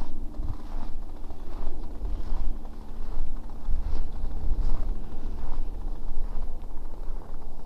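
Footsteps at an even walking pace, about one step every 0.8 s, on the frozen lake's surface, over a steady low engine hum.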